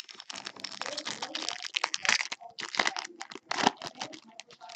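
Foil wrapper of an Upper Deck Ice hockey card pack being torn open and crinkled by hand: a dense run of crackling and rustling that thins out near the end.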